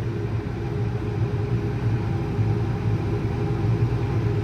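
Grain-cart tractor engine running steadily, a low even drone heard from inside the cab.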